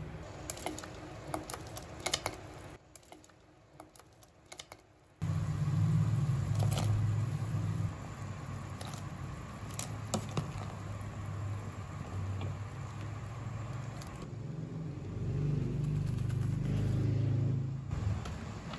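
A plastic spatula clicks and scrapes in a stainless steel pot of simmering stew. About five seconds in, a steady low hum starts suddenly and runs under the rest, with a few more light clicks.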